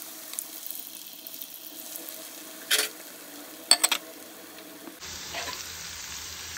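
Sweet corn kernels coated in cornflour and maida deep-frying in hot oil, a steady sizzle. A few sharp clicks come about midway, once and then three in quick succession.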